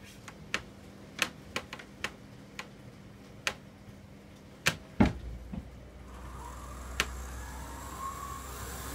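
Model diesel locomotive running through a tunnel toward the layout's front: scattered sharp clicks at first, then from about six seconds a steady low hum with a faint whine that grows louder as it nears.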